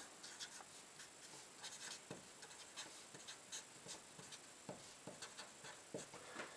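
Marker pen writing on paper: a run of faint, short strokes as letters and numbers are written.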